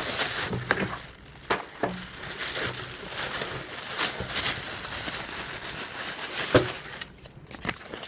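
Packaging being handled and unwrapped, crinkling and rustling in irregular bursts with a few sharp clicks; it quietens briefly near the end.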